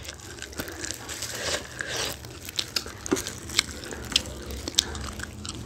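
Close-miked eating: biting into and chewing saucy hot chicken wings, with the crinkle of disposable plastic gloves and scattered sharp clicks.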